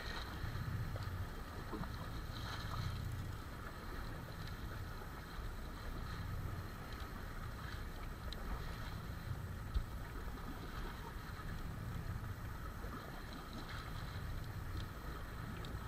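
Steady wind and water noise on a boat at sea, with a low rumble that rises and falls underneath. A single sharp knock about two-thirds of the way through.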